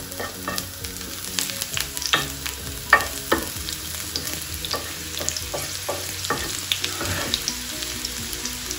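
Chopped garlic frying in a little hot oil in a nonstick frying pan: a steady sizzle with many small crackling pops, as a wooden spoon stirs it around the pan.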